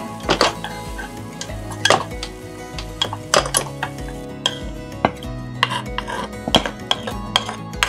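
A metal spoon scraping and knocking against a frying pan as food is scooped out onto a ceramic plate, a dozen or so irregular clacks and scrapes.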